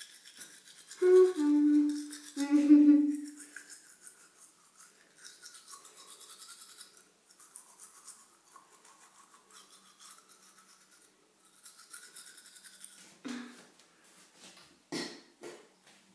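Manual toothbrush scrubbing teeth, a rapid scratchy brushing that comes and goes. About a second in, two short hummed notes from the child brushing are the loudest sound, and a few sharp knocks come near the end.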